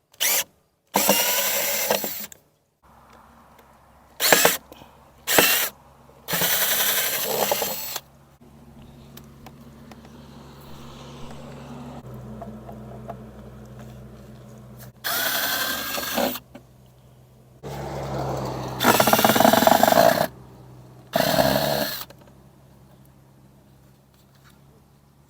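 Power drill run in about eight short whirring bursts of up to two seconds each, as when backing screws out of a wooden fence slat. A fainter steady hum sits between the bursts.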